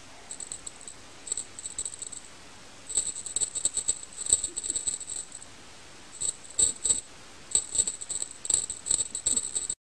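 Small bells jingling in irregular bursts of shaking, four bouts in all, with short pauses between them. The sound cuts off suddenly near the end.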